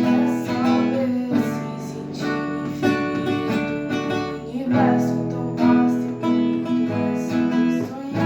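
Acoustic guitar strumming chords in a steady rhythm, the chords changing every second or two.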